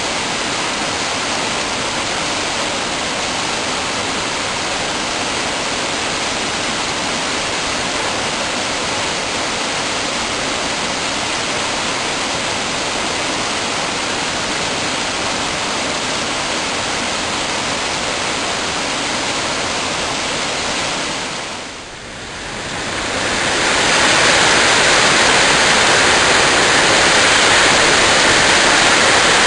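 Steady rush of a mountain waterfall's falling water. About 22 s in it dips briefly, then returns louder and brighter.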